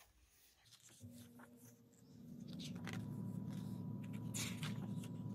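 Glossy photo-book pages being handled and turned, a few soft paper rustles and flicks. About two seconds in, a steady low hum comes up underneath and becomes the loudest sound.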